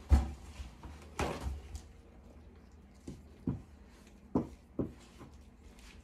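A paper towel roll is set down on a table with a sharp thump, and a sheet is torn off with a rustle. A spoon coated in soap batter is then wiped on the paper towel, making four light knocks against the table.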